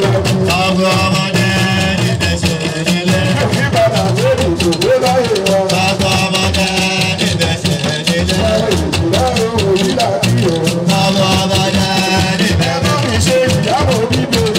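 A man singing through a microphone in long, wavering melodic lines over live hand drums and a quick, dense rattling shaker rhythm.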